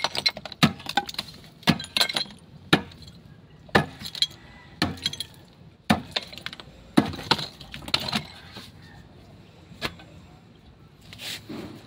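Metal bar being struck against a concrete tomb niche and its tile facing, breaking it open: sharp blows about once a second, with clinking of broken tile and falling rubble. The blows stop a couple of seconds before the end.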